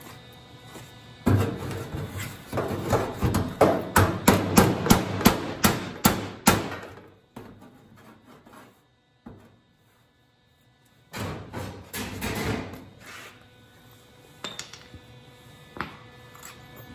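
Hammer striking the sheet-steel quarter panel of a 1930 Ford Model A roadster, a run of about fifteen sharp blows at roughly three a second, with the metal's edge being worked into shape at the bottom of the panel. After a pause comes a shorter stretch of rubbing and knocking, then a few light taps.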